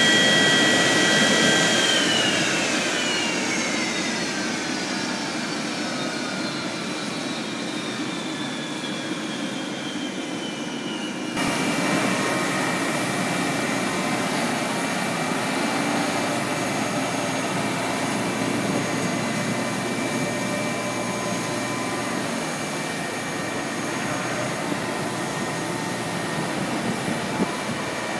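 Jet turbine whine from the Boeing 737-200, steady at first and then falling in pitch from about two seconds in as the turbine winds down. After an abrupt change about eleven seconds in, a steady turbine whine and rushing noise carry on at a level pitch.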